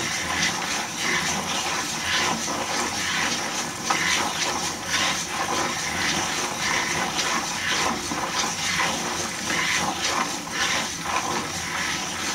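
Wooden gear train of a hand-cranked cycloid drawing machine turning steadily, the gear teeth meshing in a continuous dense clatter.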